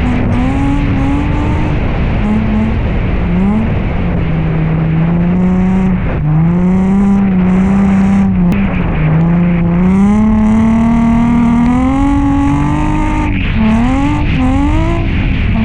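Nissan 350Z's V6 engine being revved hard while drifting, the revs swinging up and down over and over with sudden drops and quick climbs.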